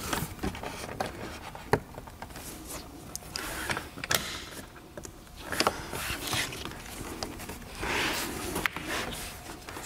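Hands working plastic car interior trim at the door frame: scattered small clicks and taps between rustling scrapes as a trim piece is maneuvered back into place.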